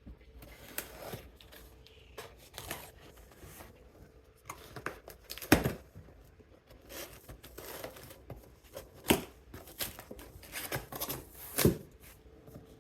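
Packaging being handled during an unboxing: cardboard and plastic wrapping rustling and being pulled apart, with irregular knocks. The loudest knock comes about halfway through.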